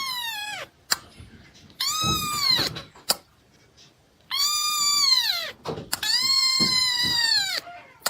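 A cat giving a series of long, drawn-out meows, about one every two seconds. Each meow holds its pitch and then falls away at the end.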